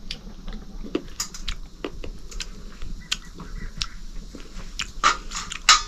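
Fried katus nuts (wild acorns) being cracked open by fingers and teeth and chewed: irregular crisp shell cracks and clicks, with two louder cracks near the end.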